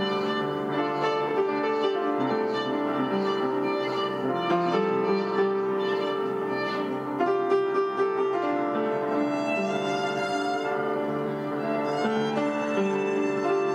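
Live violin and upright piano duet: a bowed violin melody over piano accompaniment. Through the first half there is a steady pulse of notes about twice a second, and longer held notes follow.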